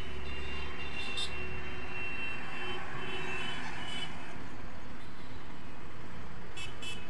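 Steady outdoor traffic noise, with a few thin high tones in the first half.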